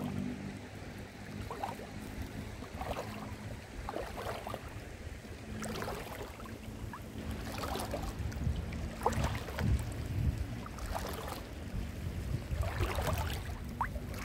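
Shallow seawater sloshing and splashing in irregular bursts, as from someone wading, over a steady low hum.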